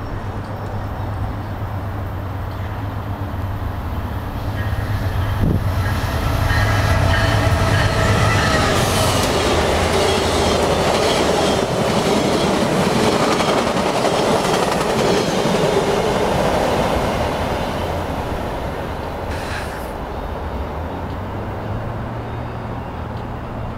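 VIA Rail passenger train led by a GE P42DC locomotive passing at speed, about 120 km/h. It grows loud from about four seconds in, stays loud while the cars rush by, and fades after about eighteen seconds. Under it runs a steady low hum from a tie excavator working on the track.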